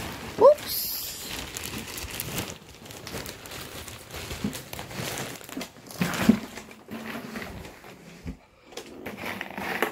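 Clear plastic bag of corn pop snacks crinkling and rustling as it is handled, with scattered small crackles. A short rising squeak about half a second in.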